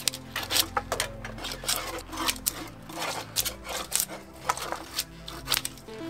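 A 9⅝-inch draw knife stripping bark from a shagbark hickory log: a run of short, sharp scraping strokes, about two a second, over background music with low sustained notes.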